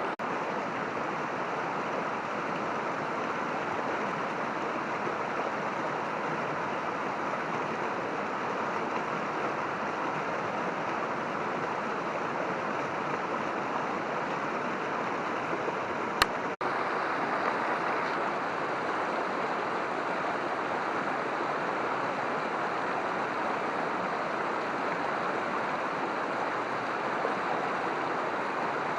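Mountain stream water running over rocks, a steady rush. About halfway through there is a single sharp click followed by a momentary break in the sound.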